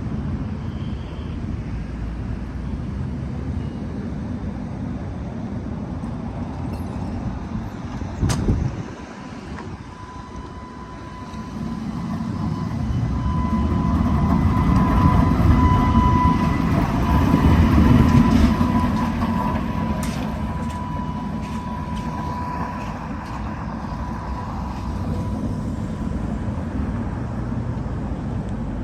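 A 1920s Perley Thomas streetcar rumbles as it pulls away. About ten seconds in, its steel wheels set up a steady high squeal on the sharp curve, which grows louder along with the rumble of the car and then fades. There is a sharp knock about eight seconds in.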